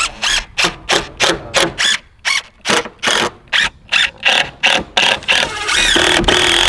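DeWalt cordless drill driving screws into a pine board, in short bursts about three a second, then running longer near the end.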